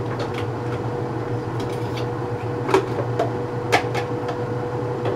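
Steady hum of a kitchen appliance, with sharp clinks of a glass bowl and containers being handled on the counter, the two loudest a second apart near the middle.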